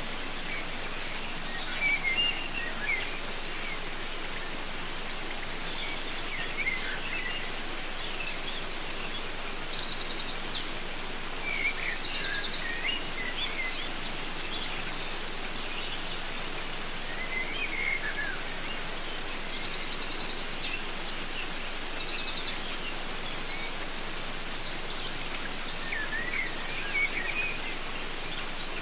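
Waterfall rushing steadily, with several birds calling over it: scattered chirps and whistles, and short fast trills that come back twice.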